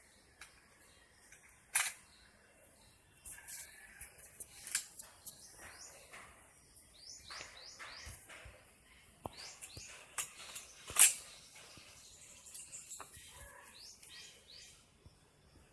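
Birds chirping, with two sharp clacks from a GI Model 35 .22 air rifle, a lighter one about two seconds in and a louder one about eleven seconds in.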